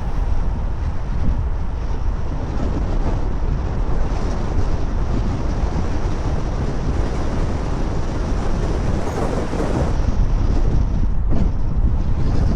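Wind buffeting the microphone over the steady rumble of a car driving along the road.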